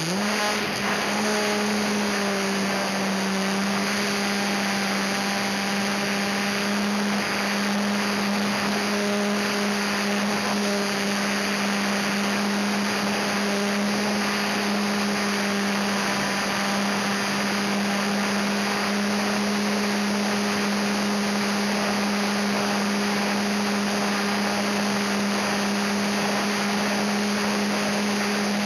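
Battery-powered electric motor and propeller of a small homemade radio-control plane running at a steady pitch in flight, over a steady hiss.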